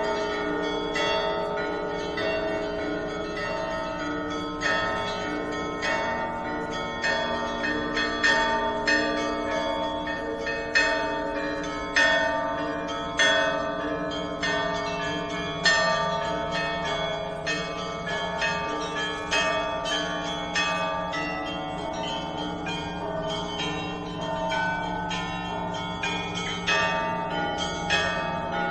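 Russian Orthodox bell ringing on the Danilov Monastery bells: many bells of different sizes struck in a continuous peal, a deep bell sounding steadily beneath frequent strikes of smaller bells.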